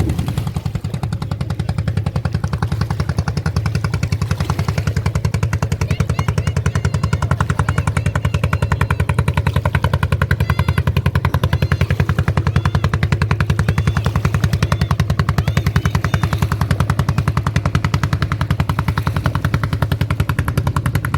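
Motorised boat's engine running steadily and loudly, a fast, even chugging.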